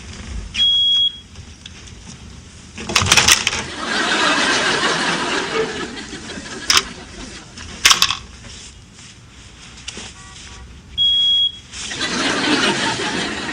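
Smoke detector giving two short, high-pitched beeps about ten seconds apart, with a studio audience laughing in between.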